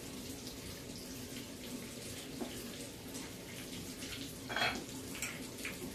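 Hot oil sizzling steadily around frying buffalo fish, with scattered small pops and one louder crackle about four and a half seconds in.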